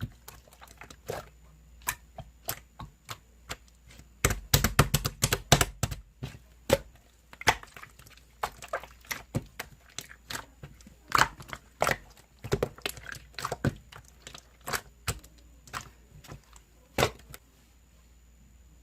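Yellow slime being squeezed and pressed by hand, giving a run of sharp clicks and pops, with a dense flurry of them about four to six seconds in. The clicks stop about a second before the end.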